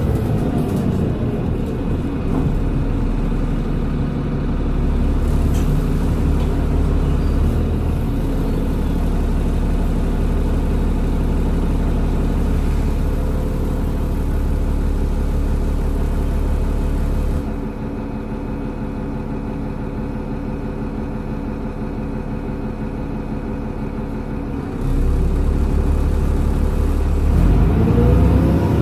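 Transbus Trident double-decker bus diesel engine and Voith gearbox running. The note falls as the bus slows at first, then runs steadily. About two-thirds of the way in it drops to a quieter idle for several seconds, then rises again as the bus pulls away near the end.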